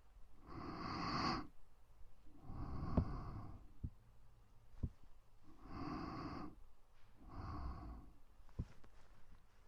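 Close-miked ASMR breathing: four slow, soft breaths in two in-and-out pairs, each about a second long. A few faint clicks fall between them.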